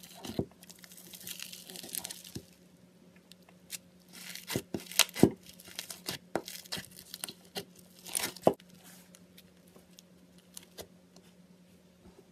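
Hands kneading and mixing slimes in a plastic bowl, among them foam-bead slime and bead-filled slime: irregular sticky crackling and tearing, with sharp pops. The loudest pops come about five seconds in and again around eight seconds.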